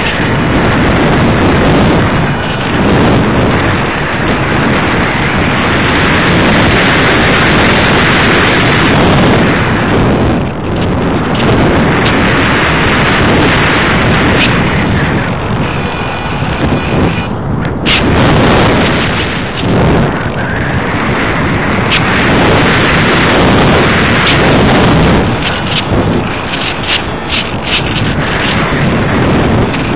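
Loud wind rushing over the microphone of a camera carried aboard a ParkZone Radian RC glider in flight, swelling and easing in gusts, with brief lulls about ten and eighteen seconds in.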